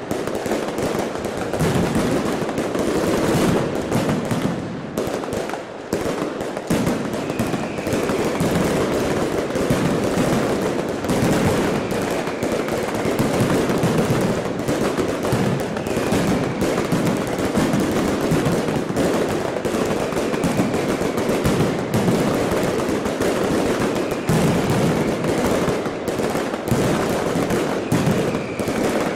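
Long, continuous barrage of firecrackers: a dense rapid crackle of sharp bangs that runs without a break.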